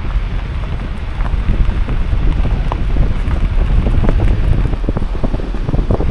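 Wind buffeting the microphone in heavy, uneven gusts over the steady rush of spring water pouring out of a canyon wall.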